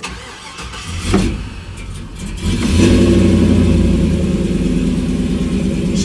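LS-swapped Chevy Caprice V8 being cranked by the starter, catching about two and a half seconds in and then running steadily. It is a start after the engine has sat unused for a while.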